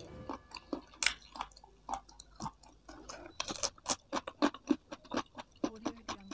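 A person chewing a mouthful of ayam geprek and rice with the mouth closed, close to the microphone. It gives irregular wet clicks and smacks that come quicker and louder in the second half.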